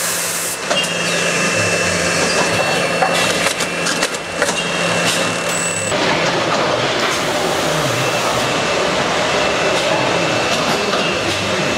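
Soil-handling machinery running: an electric-motor-driven soil elevator and a chain scraper conveyor moving potting soil. It makes a steady mechanical clatter with a low hum and a thin high-pitched whine, and a few knocks in the first half. The noise changes abruptly about six seconds in.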